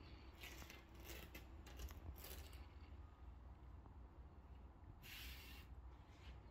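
Felt puzzle mat rustling faintly as it is lifted and smoothed out by hand: several short swishes in the first couple of seconds and one more about five seconds in.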